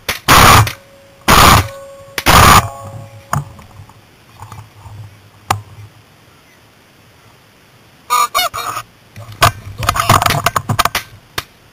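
Three shots from a Beretta Xtrema 12-gauge semi-automatic shotgun, about a second apart, loud enough to max out the level. Honking of geese comes about eight seconds in.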